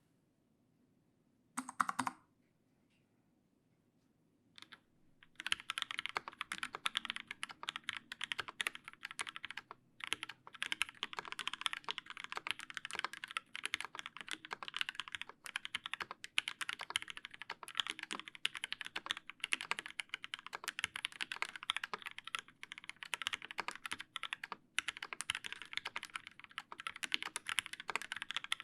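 Steady typing on a TGR Alice mechanical keyboard with lubed Linjar linear switches in a brass plate and GMK keycaps. It starts about five seconds in and runs with a couple of brief pauses. Before it there is a short, louder knock-like noise about two seconds in and a single click.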